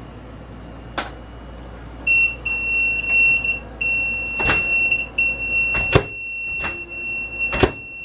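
Multimeter continuity tester beeping with a steady high tone on a microwave door switch, which is making contact with the door shut; the tone starts about two seconds in and breaks off briefly a few times. Four sharp clicks sound between.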